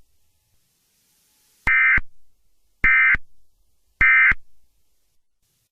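Emergency Alert System end-of-message tones: three short bursts of SAME digital data warble, each about a third of a second long and about a second apart, each trailing a brief echo. They mark the end of the alert broadcast.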